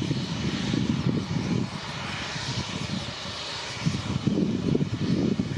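Jet airliner's twin turbofan engines running as the Airbus A320 rolls along the runway: a steady hiss with a rough low rumble underneath.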